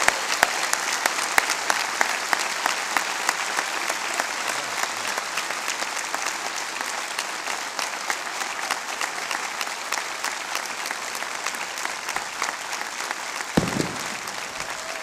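Large audience applauding, dense clapping that slowly thins out and softens. A couple of dull low thumps come near the end.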